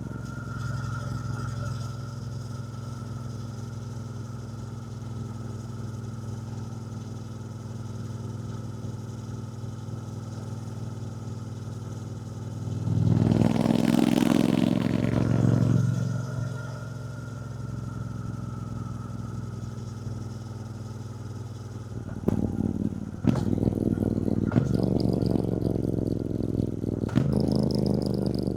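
A Triumph Bonneville T120's 1200 cc parallel-twin engine running at low revs. About halfway through it surges louder for about three seconds. Several sharp clicks and knocks come near the end.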